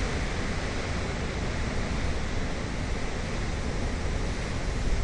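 Heavy storm surf breaking against a seawall: a steady rushing noise with a deep low rumble, mixed with wind buffeting the microphone.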